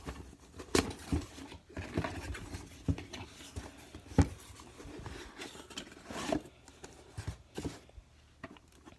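Small cardboard shipping box handled and opened by hand: scattered taps, scrapes and rustles of cardboard, with one sharp click about four seconds in. Near the end, hard plastic graded-card slabs click against each other as a stack is lifted out.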